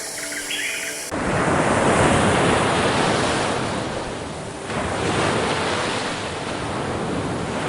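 Ocean surf: a loud, even rushing of waves that swells, eases and swells again. It cuts in abruptly about a second in, replacing chirping bird calls over soft music.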